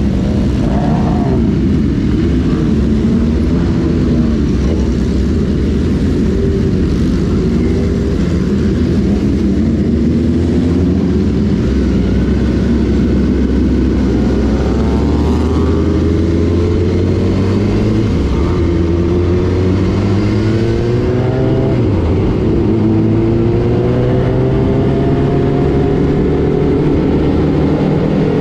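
Sport-bike engines of a group ride heard from aboard one of the motorcycles, running steadily, then rising in pitch again and again from about halfway on as the bikes accelerate through the gears.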